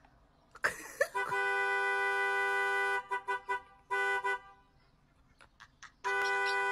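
Two-note car horn sounding as a dog leans its paws on the steering wheel: one long blast of about two seconds, a few short taps, another short blast, then a second long blast near the end.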